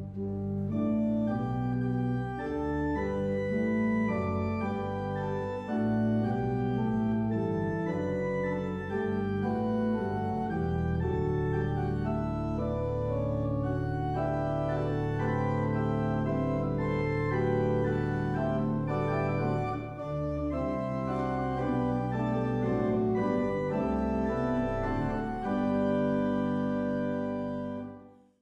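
Organ postlude closing the service: sustained chords changing slowly, with a long held chord over the bass in the middle, fading out near the end.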